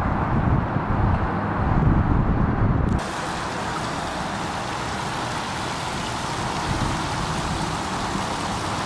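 A low rumble for about three seconds, then, after a sudden change, the steady rushing splash of a landscaped rock waterfall cascading into a pond.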